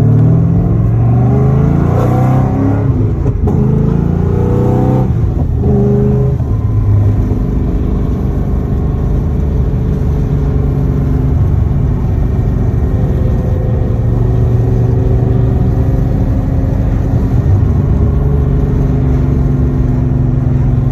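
Built Chevrolet Camaro's engine with an aftermarket cam, heard from inside the cabin: it revs up hard through about three quick upshifts in the first six seconds, each rise in pitch cut by a drop at the shift. It then settles into a steady cruising drone.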